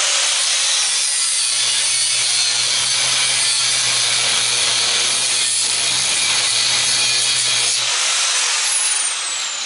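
Angle grinder cutting steadily across the side of an old fan motor, a relief cut to take tension off so the part will come apart. The cutting stops about eight seconds in and the disc winds down with a falling whine.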